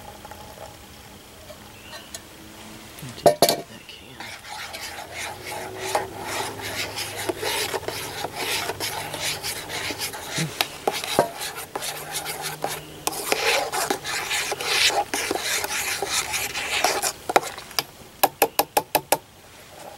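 Metal spoon scraping, clinking and stirring inside a stainless steel camp mug of mint tea, after one sharp metal clank about three seconds in. Near the end comes a quick run of about eight light metal taps.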